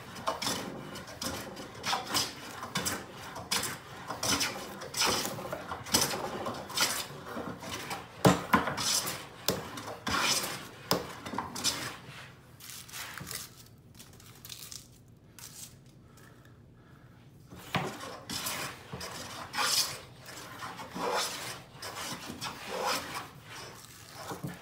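Wooden-bodied hand plane taking repeated strokes along a board's edge, each pass a short hiss of the blade cutting a shaving, about two a second. The strokes pause for a few seconds near the middle, then carry on.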